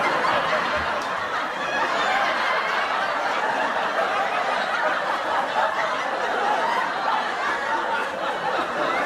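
Many people laughing together as a crowd, a steady laugh-track sound effect.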